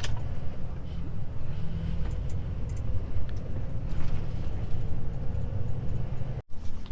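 Volvo FH truck's diesel engine running with a steady low rumble while driving; the sound cuts off abruptly near the end.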